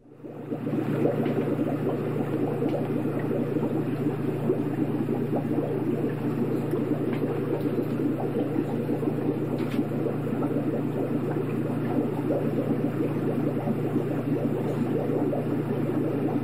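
Aquarium water bubbling steadily over a constant low hum, fading in from silence at the start.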